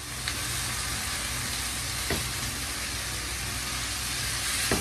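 Beef mince sizzling as it browns in a hot frying pan: a steady hiss over a low, even rumble, with a few light knocks.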